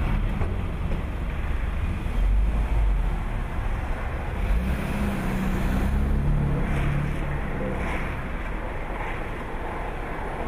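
Street traffic: car engines running with a steady low rumble, mixed with wind noise.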